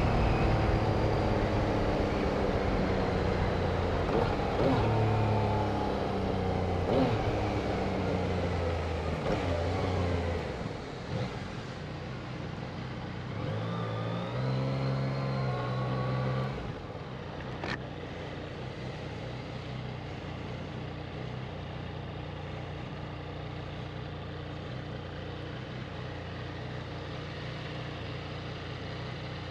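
Vehicle engines at a race-track corner. One engine falls in pitch as it slows over the first ten seconds, and another rises in pitch as it accelerates away around the middle. After that a steady low engine hum continues, with a single sharp click just after the middle.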